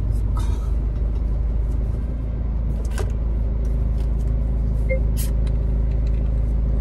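Steady low engine and road rumble heard inside a car's cabin as it drives, with a couple of faint clicks.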